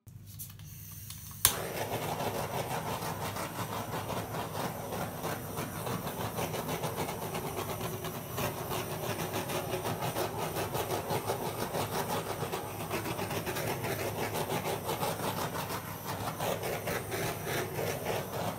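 Handheld butane blowtorch: a soft gas hiss, a sharp click about one and a half seconds in as it lights, then the flame burns with a steady, fluttering rushing hiss that stops at the very end.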